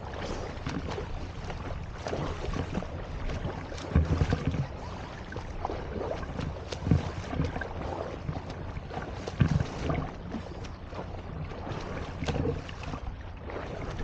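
Water splashing and sloshing from front-crawl strokes of swimmers beside a camera held at the surface, with irregular louder splashes about 4, 7 and 9.5 seconds in. Wind rumbles on the microphone.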